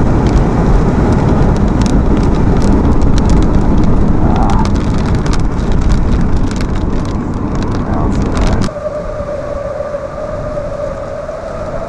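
Heavy rumble of tornado wind buffeting a vehicle, with rain and small debris ticking against the windshield and body. About three-quarters of the way through it cuts off suddenly, leaving quieter wind noise and a steady, slightly wavering high tone.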